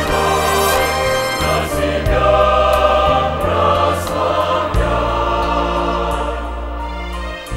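A mixed choir of men's and women's voices singing a hymn in harmony, a little quieter toward the end.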